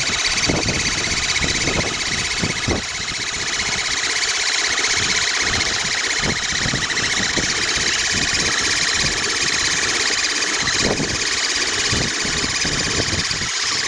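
RC crawler's electric motor and gear drivetrain whining steadily at a high pitch as it drives, with irregular low knocks underneath.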